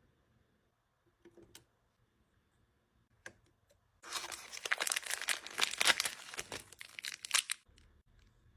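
Plastic packaging crinkling and tearing for about four seconds, after a few faint clicks.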